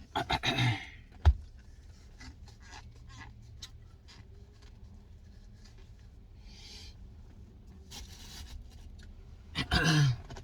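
Plastic spoon scraping and clicking in a Blizzard cup while eating, with a sharp knock about a second in. Brief voice-like sounds near the start and near the end.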